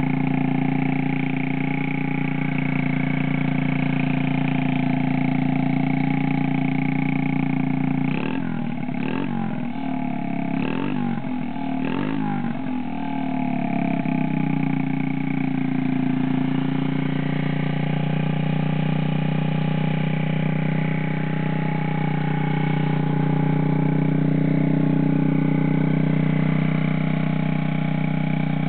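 Honda Monkey Z50J's 50cc single-cylinder four-stroke engine idling steadily, with about four quick throttle blips between about eight and thirteen seconds in.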